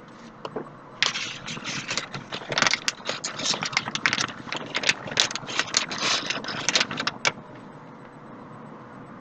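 A couple of light knocks, then about six seconds of dense, irregular clattering and rattling that stops abruptly.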